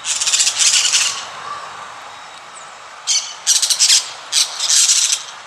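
Caged budgerigars (Australian parakeets) giving harsh, scratchy squawks in short bursts: one burst in the first second, then a run of several more about three seconds in.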